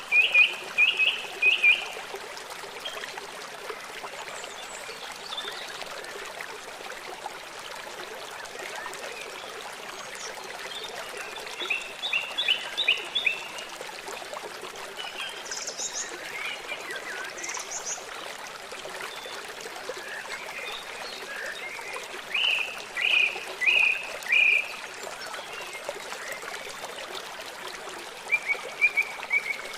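Wild songbirds singing short phrases of several quick, high notes every few seconds, over a steady rush of running water. Near the end one bird gives a fast trill.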